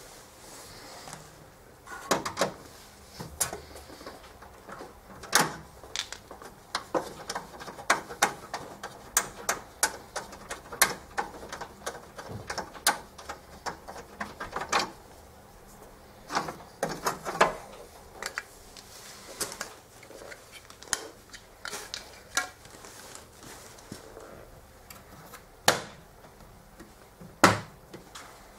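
Irregular clicks, knocks and light rattles of hands handling a desktop 3D printer and its plastic parts and packing, some dozens of separate sharp taps at uneven intervals.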